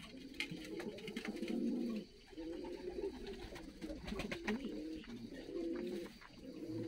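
Several domestic pigeons (fighting-pigeon breeds) cooing together in a loft: low, warbling coos that overlap continuously, with scattered short clicks.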